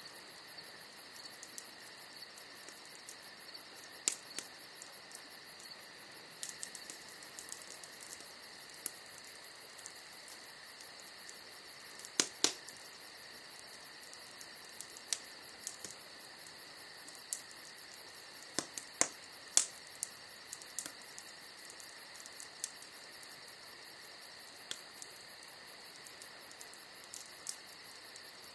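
Bonfire wood crackling, with sharp pops at irregular intervals, a tight cluster about twelve seconds in and several more around twenty seconds. A steady high chirring, like crickets, runs underneath.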